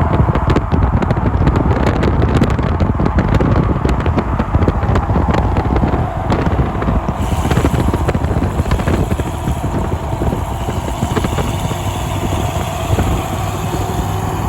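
Pickup truck driving at speed with its windows down: a steady mix of engine and road noise, with wind rushing in through the open windows.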